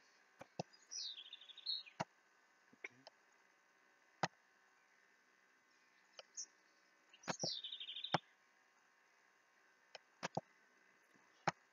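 About ten scattered single clicks of a computer mouse. Twice, near the start and again past the middle, a bird call: a quick falling run of chirps about a second long.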